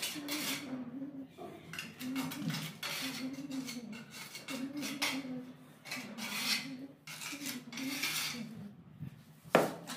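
Steel trowel scraping and clinking against ceramic skirting tiles and the mortar in their joint, in irregular short strokes, with one sharp knock near the end.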